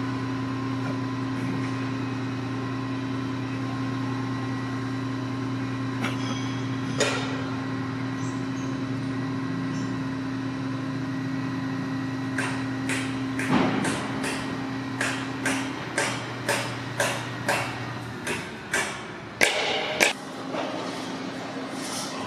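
A steady low engine hum that cuts off about eighteen seconds in. A run of sharp knocks, roughly two a second, starts about twelve seconds in and carries on past it; the knocks are the loudest sounds.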